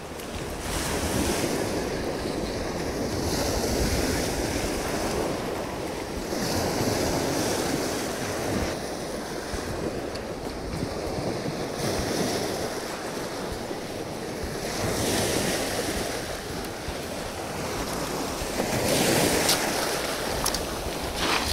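Small waves washing onto a stony shingle beach, swelling and easing every few seconds, with wind on the microphone.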